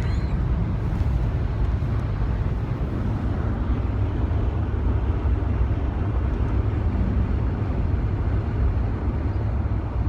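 A steady low rumble with a fainter hiss above it, unbroken and without any rhythm; no separate snores stand out.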